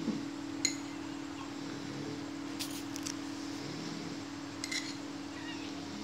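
A metal spoon clinks a few times against a small rice bowl as a toddler scoops and eats, over a steady low hum.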